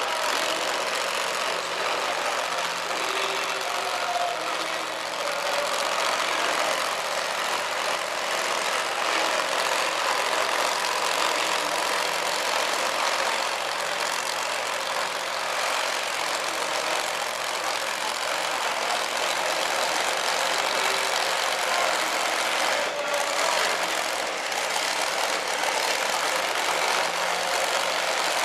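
Supercharged engine of a two-wheel-drive pulling truck idling steadily while it moves slowly on the dirt track, with no revving.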